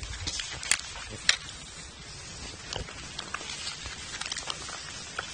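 Handling noise: fabric rustling and rubbing over the microphone, with scattered sharp clicks and crackles, the loudest two in the first second and a half.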